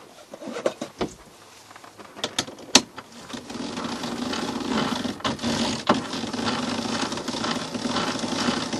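A few clunks, the loudest about three seconds in, then a steady, rapid mechanical ratcheting from about three seconds on: a sailing yacht's sheet winch being wound to haul in a sail's sheet.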